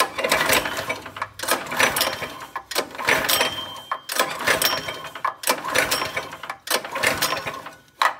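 Predator 212 single-cylinder four-stroke engine being pull-started, its recoil starter cranking it over about six times, one pull every second or so, without it firing. The engine won't catch because the choke is off, which the owner realises just after.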